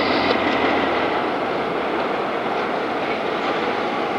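Mohawk, Adirondack & Northern diesel locomotive running as it rolls past, a steady engine noise.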